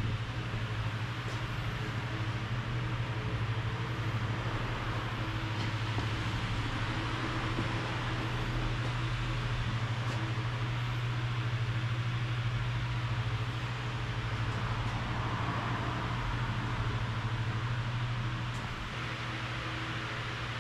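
Car running: a steady low engine hum with a wash of road or tyre noise, easing slightly near the end. No brake squeal stands out.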